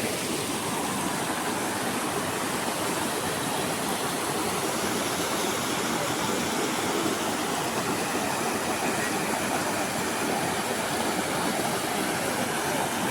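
A waterfall: a steady, even rush of falling water.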